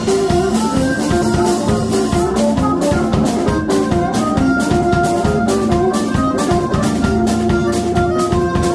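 A small band playing a swing tune live: harmonica holding long notes over electric guitar, electric bass and a drum kit keeping a steady beat.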